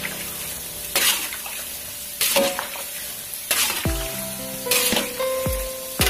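Amplang fish-cracker dough pieces sizzling as they fry in a wok of hot oil. A metal slotted spatula stirs and scrapes them in four strokes a little over a second apart. The pieces are still pale, not yet golden.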